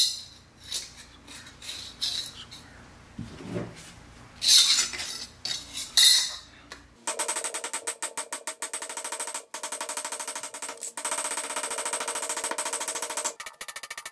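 A steel carpenter's-square blade is struck with a hammer on an anvil. First come a few scattered knocks as the blade is set on the anvil. Then, from about seven seconds in, a fast, even run of ringing metallic hammer taps lasts until shortly before the end.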